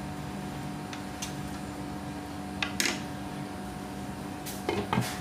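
Steady mechanical hum with a few fixed tones, broken by short sharp clicks and clatters about two and a half seconds in and again near the end.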